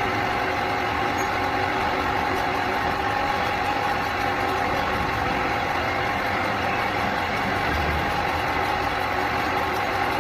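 Steady mechanical hum with a constant tone, running evenly without change.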